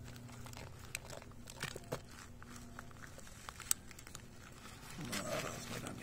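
Thin plastic pot being handled and tilted, crinkling with scattered small clicks as the perlite-and-compost root ball shifts inside; a louder rustle about five seconds in.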